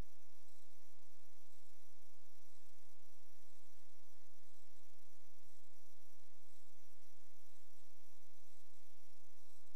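Steady electrical mains hum with many evenly spaced overtones, over a faint steady hiss, carried on the sewer inspection camera system's recording.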